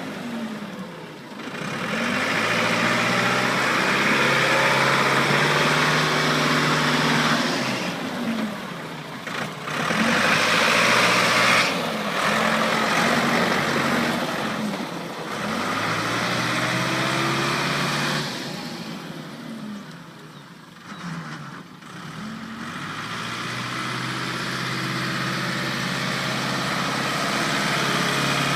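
Ford New Holland 555D backhoe's diesel engine, its revs dropping and climbing back over and over as the machine is worked. It falls lowest about two-thirds of the way through, then builds steadily back up.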